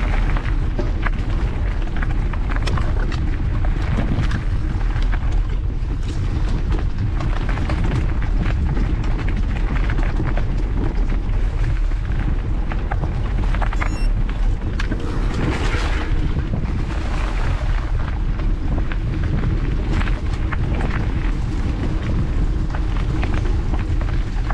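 Wind buffeting the microphone of a camera on a mountain bike, a steady low rumble, with the rattle and crunch of the bike and its knobby tyres over a rough dirt singletrack.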